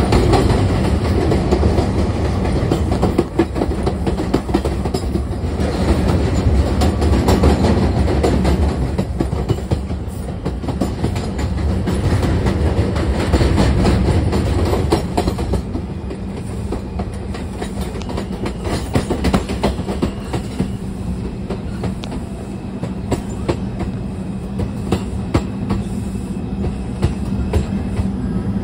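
R142 subway train entering the station on elevated track: a steady rumble of steel wheels with quick clacking over the rail joints, plus the train's propulsion noise. The noise eases somewhat about halfway through, and a faint steady whine shows in the later part.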